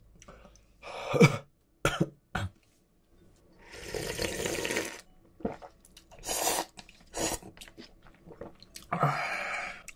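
Close-miked eating sounds: a short throat sound about a second in, then a long slurp of hot ramen broth drunk straight from a cup-noodle cup, followed by wet chewing and lip smacks.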